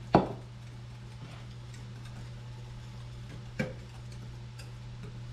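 Cookware handled while thinning tomato sauce in a small metal saucepan: a sharp clink just after the start and another about three and a half seconds later, with faint ticks of stirring between. A steady low hum runs underneath.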